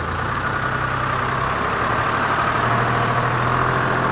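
A steady engine idling sound with a low hum under a hiss, with no change in speed.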